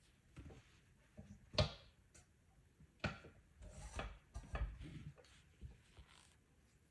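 Light knocks and rubbing from painting materials being handled on a work surface. The sharpest knock comes about one and a half seconds in, followed by a run of smaller knocks and rustles over the next two seconds.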